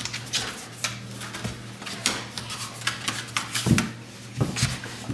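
Claws of a grizzly bear cub and a goldendoodle clicking and scrabbling on a tile floor as the two wrestle. There are irregular scratchy clicks throughout, a couple of heavier thumps about three and a half to four and a half seconds in, and a steady low hum underneath.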